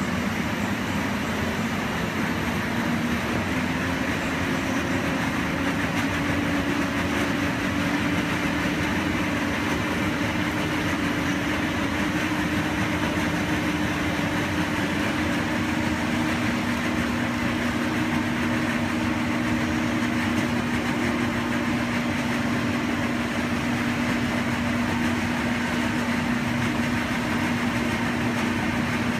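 Electric air movers set to speed 3 running steadily as they blow air into an inflatable paint booth. The booth is being inflated. The sound is a constant rush of air over a motor hum that drops slightly in pitch about halfway through.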